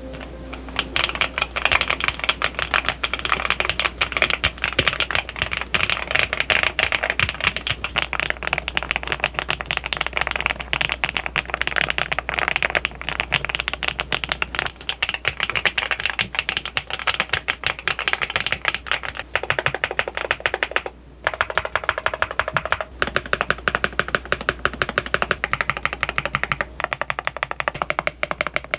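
Fast, continuous typing on a RICCKS RS8 mechanical keyboard, its keys clacking in quick runs, with a short pause about two-thirds of the way through.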